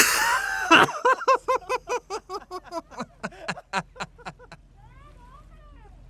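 A person laughing: a sharp cry right at the start, then a long run of rhythmic 'ha-ha' bursts, about four a second, that grow weaker and die out after about four and a half seconds. A low steady hum sits underneath.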